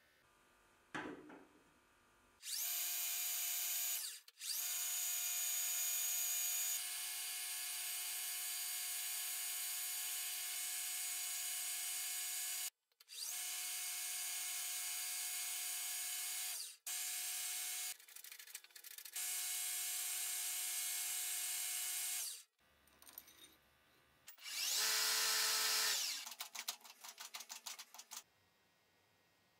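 Metal lathe running while a twist drill held in the tailstock bores into a spinning brass rod: a steady machine whine with several fixed tones, in stretches that start and stop abruptly. Near the end comes a louder, shorter burst of machining, then a quick run of clicks.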